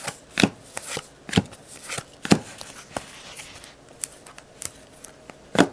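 Baseball trading cards being flipped through one at a time, each card giving a sharp snap or flick at an uneven pace of about one or two a second, the loudest near the end.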